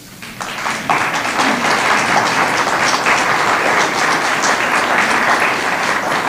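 Audience applauding, building up over about the first second and then holding steady.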